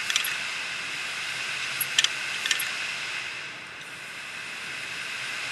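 Opened Western Digital 500 GB hard drive running with its cover off: the spinning platters give a steady hiss, and the head actuator clicks sharply near the start, around two seconds in and again half a second later, dipping briefly after that. The heads have crashed onto the platter surface, so the drive clicks instead of reading.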